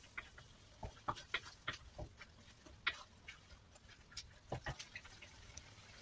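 Wooden spatula scraping and knocking against a wok as a thick tomato-and-onion mixture is stirred: irregular scrapes and taps that die away about five seconds in.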